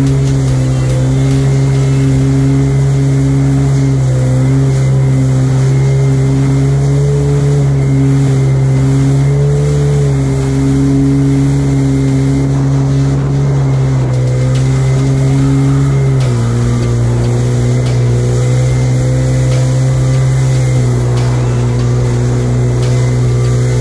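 Jet ski engine running at cruising speed, a steady drone whose pitch shifts slightly with the throttle and drops about 16 seconds in as it eases off, over the rush of water spray.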